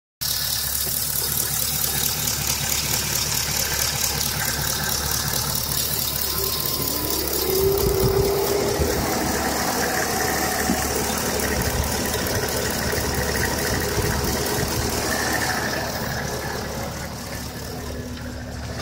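Pontiac G8 GT's 6.0-litre LS V8 idling steadily with a fast, light ticking over the engine sound. The owner asks whether it is lifter tick.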